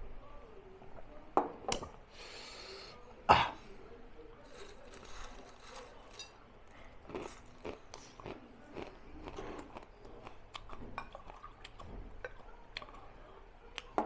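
Someone eating: chewing and small mouth sounds with light clinks of dishes, and one loud, sudden cough-like burst about three seconds in.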